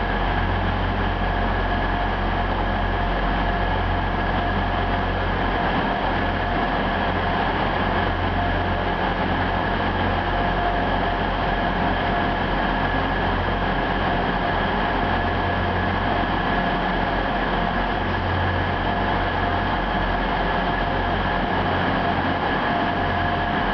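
Northern Class 158 diesel multiple unit engines running steadily: a low drone with a constant high whine over it, unchanging throughout.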